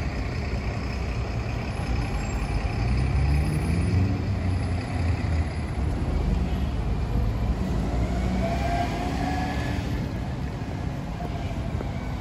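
City street traffic: car engines running and passing close by, one engine rising in pitch a couple of seconds in.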